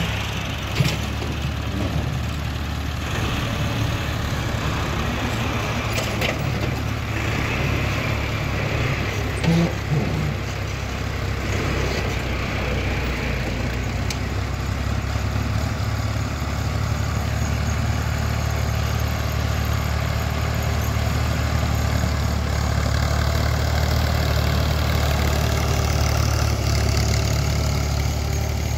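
New Holland Ghazi 65 hp tractor's diesel engine running steadily under load while pulling a laser land leveller across the field. Two brief knocks stand out, about a second in and near ten seconds.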